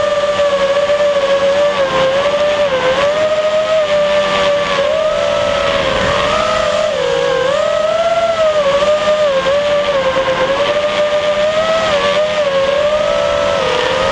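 FPV racing quadcopter's motors and propellers whining as heard from the onboard camera, the pitch repeatedly dipping and climbing back as the throttle is eased and opened, over a steady rushing hiss.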